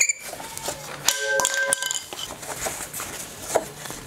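Metal hand tools clicking and clinking against the e-bike's crank as a freshly loosened crank fitting is worked free, with a brief ringing tone about a second in.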